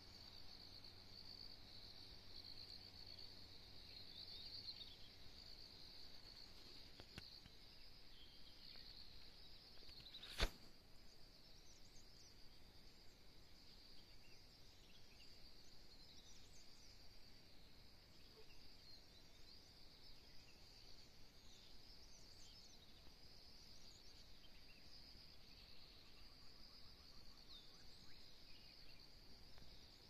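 Near-silent dawn mountain ambience: a steady high insect trill with faint, far-off bird calls scattered over it. A single sharp click about ten seconds in stands out as the loudest sound.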